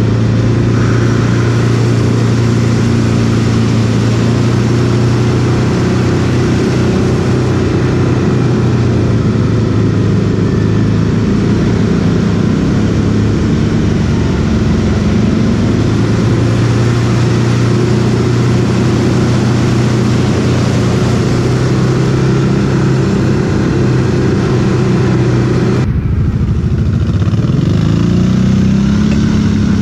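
Quad (ATV) engine running at a steady pace while being ridden. About 26 seconds in the throttle comes off sharply, and then the engine picks up and rises in pitch again.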